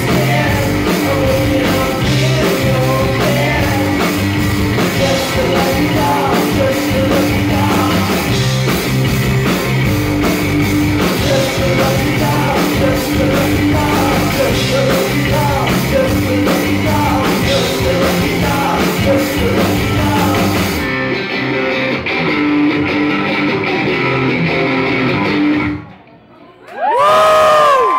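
Live rock band with electric guitars, drums and a singer playing the end of a song loud; about three quarters of the way through, the drums stop and the guitars are left ringing. The song cuts out near the end, and a loud burst of crowd whooping and cheering starts.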